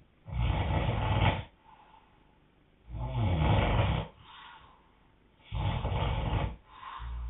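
A man snoring hard while asleep: three loud snores, each about a second long, at a steady rhythm of one every two and a half seconds, with softer breaths between them.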